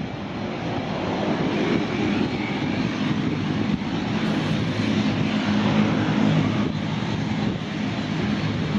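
A De Havilland Canada Dash 8-300's twin Pratt & Whitney Canada PW123 turboprops running at low taxi power: a steady propeller drone with a low hum, growing a little louder over the first couple of seconds.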